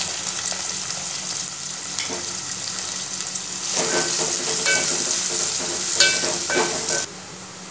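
Freshly added chopped onions sizzling in hot oil in a metal pan as a wooden spoon stirs them. The sizzle drops away sharply near the end.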